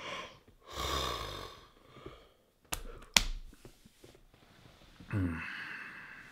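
A man breathing out heavily and sighing. A loud breath comes about a second in, two sharp clicks around the middle, and near the end a sigh whose voiced pitch falls.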